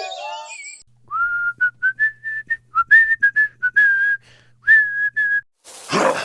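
A person whistling a short, mostly level tune of quick notes, with a few notes sliding up. Near the end there is a short burst of noise.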